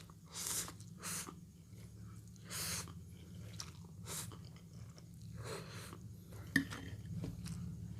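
Close-up chewing of a mouthful of spicy instant noodles, broken by about five short, hissing breaths or slurps, with a sharp click about six and a half seconds in. A low steady hum runs underneath.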